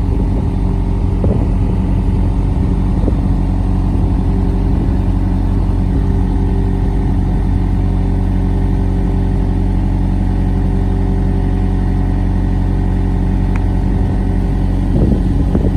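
A diesel engine idling steadily at an even, unchanging pitch.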